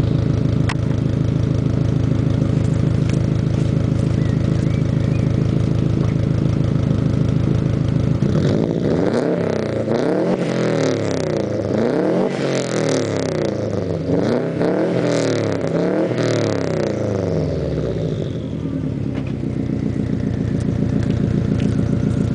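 Subaru Impreza turbocharged flat-four boxer engine through a Hayward and Scott aftermarket exhaust, idling with a burble. About eight seconds in it is revved up and down several times for about ten seconds, then it settles back to idle.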